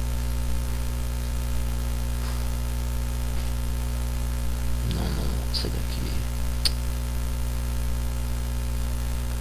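Steady low electrical mains hum, with a brief murmur about five seconds in and a single sharp click shortly after.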